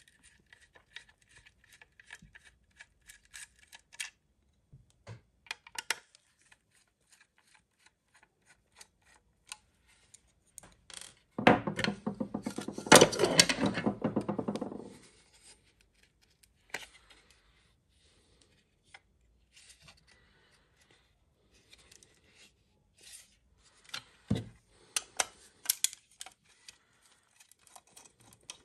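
Small clicks and taps of a screwdriver, loose screws and the plastic housing of a powerline Ethernet adapter being handled and screwed back together. A louder rough noise lasting about three seconds comes a little over ten seconds in, and another cluster of clicks follows near the end.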